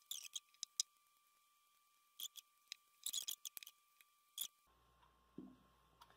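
Scattered light clicks and taps in small clusters, from hands handling a clay-covered glass bottle and small craft tools.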